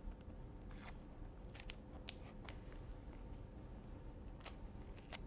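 Faint, scattered clicks and crackles of gloved hands handling a cardboard evidence box and the plastic lifter film inside it, over a low steady hum.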